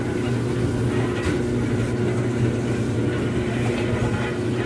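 Small engine of an amusement-park antique buggy car running steadily at a constant pitch as the car rolls along.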